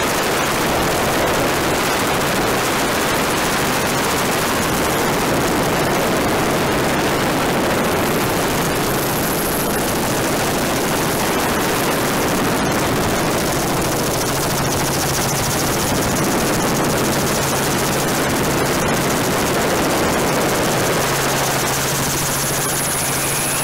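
Helicopter rotor and turbine noise mixed with rushing wind, steady and loud, heard from aboard the filming helicopter, with a fast rotor chop under it. A low steady hum joins about two-thirds of the way through.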